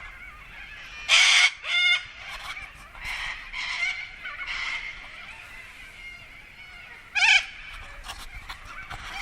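A noisy flock of birds calling over one another in a constant chatter, with loud harsh squawks about a second in, just before two seconds, and again about seven seconds in.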